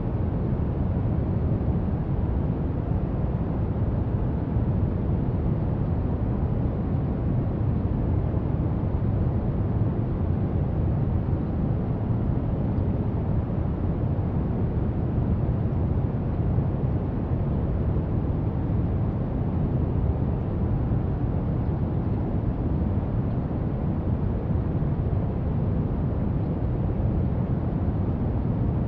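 Brown noise: a steady, deep rumbling hiss with most of its weight in the bass, unchanging throughout.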